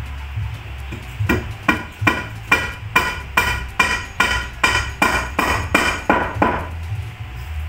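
A hand hammer striking repeatedly at the base of a wooden stair baluster, about a dozen even blows at roughly two and a half a second, each with a short metallic ring. The blows start about a second in and stop about a second before the end.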